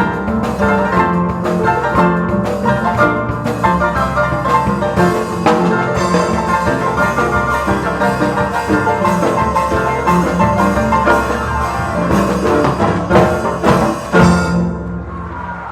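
Ensemble of Paraguayan harps playing quick plucked notes over a steady bass line, closing with a last loud chord about fourteen seconds in that rings out and fades.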